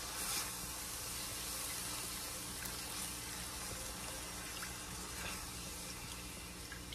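Broth poured from a glass measuring cup into a hot cast-iron skillet of browned mushrooms, hissing steadily as it deglazes the pan.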